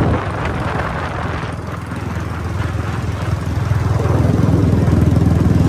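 Motorcycle engine running steadily while riding. For the first few seconds the engine is masked by rushing wind and handling noise on the microphone; its steady hum comes through clearly again about four seconds in.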